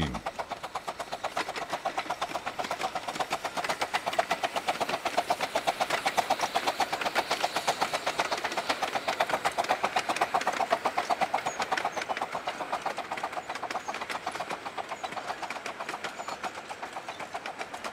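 A 15-inch gauge steam locomotive running past with a fast, even beat that grows louder towards the middle and fades away towards the end.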